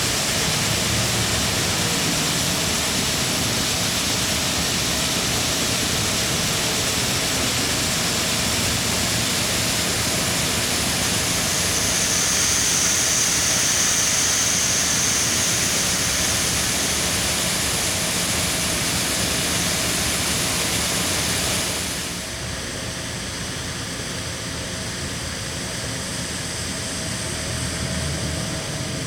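Heavy farm harvesting machinery running steadily, a dense even hiss with engine hum underneath. About 22 seconds in it drops suddenly to a quieter steady hum.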